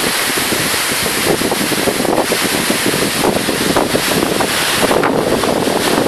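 Ocean surf breaking and washing over a rocky reef, a steady rushing, with wind gusting across the microphone.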